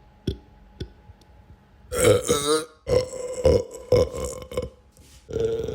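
A person belching over and over: two short clicks, then a long wavering belch about two seconds in, a quick run of short belches, and a long drawn-out belch starting near the end.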